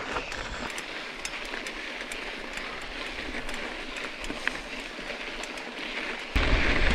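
Mountain bike tyres rolling over loose volcanic gravel and sand: a steady crunching rush with scattered small clicks and ticks of grit and the bike rattling. Near the end it turns abruptly louder with a low rumble.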